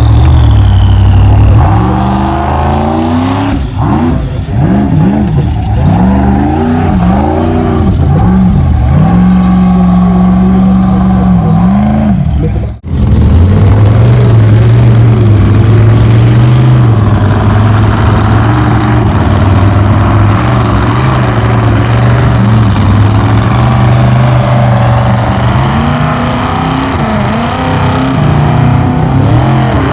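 Formula Offroad race truck engine revving hard, its pitch rising and falling again and again as the throttle is blipped and released. About 13 s in the sound breaks off sharply, and then an engine is held at high revs with a steadier, wavering note.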